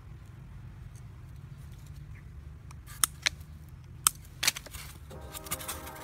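A few sharp clicks and scrapes from hands working thin wire pins into a styrofoam disc, over a low steady rumble. Background music comes in about five seconds in.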